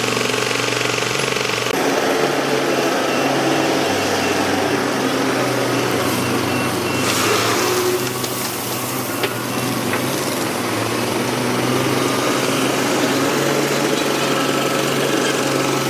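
Excavator's diesel engine running under load, its pitch shifting as it works. About seven seconds in there is a brief rushing burst of noise, and a sharp knock follows a second or two later.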